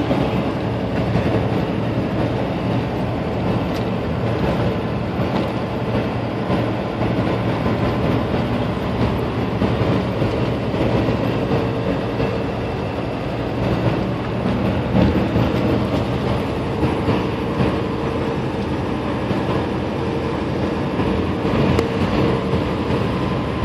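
Steady drone of a semi-truck's engine and tyres at highway speed, heard inside the cab.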